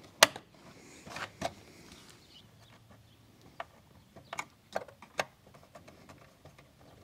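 Terminal blocks being snapped onto a DIN rail inside a junction box: one sharp snap right at the start, then scattered lighter clicks and taps.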